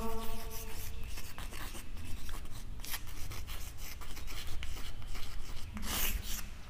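Chalk tapping and scratching on a chalkboard as words are written by hand, in short strokes. Near the end comes a longer stroke as the words are underlined.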